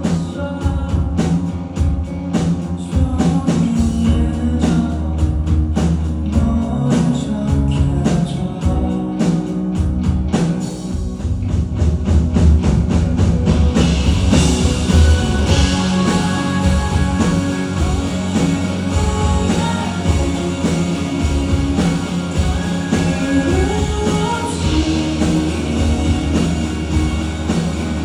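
A rock band playing a song, with drums, bass and electric guitar on a steady beat. About halfway through the band builds up and crashing cymbals come in.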